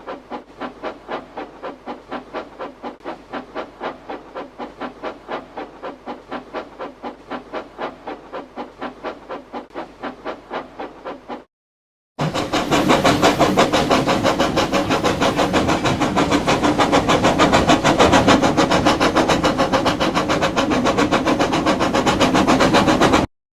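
An engine running with an even chugging beat of about three to four pulses a second. A short break comes about 11 seconds in, and then a second, louder clip follows with a faster, denser beat.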